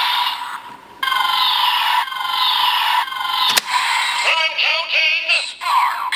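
Kamen Rider Zero-One toy driver playing a Progrise Key's electronic sound effects through its small speaker. A steady beep runs under repeated falling laser-like swoops, a sharp click comes about three and a half seconds in, then a synthesized announcer-style voice and jingle.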